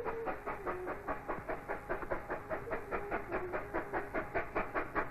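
Vale of Rheidol Railway narrow gauge 2-6-2 steam tank locomotive working hard up a steady climb, its exhaust beating in a fast, even rhythm of about six chuffs a second.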